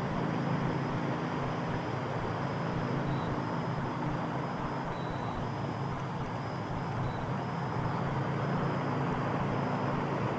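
A steady low hum and rumble, unbroken throughout, with three faint short high peeps.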